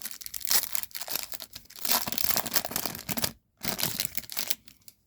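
Foil wrapper of a baseball card pack being torn open and crinkled, a dense crackling that pauses briefly and dies away near the end.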